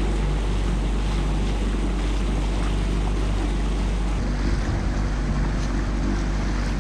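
Outboard motor of a small aluminium boat running at a steady cruising speed, with the rush of water and wind over the boat.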